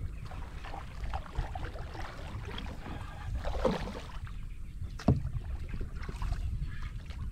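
Wind rumbling on the microphone and water moving around a fishing kayak, with one sharp knock about five seconds in.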